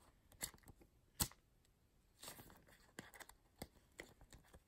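Faint crinkling and light clicks of a clear plastic penny sleeve being handled as a trading card is slipped into it, with one sharper click about a second in.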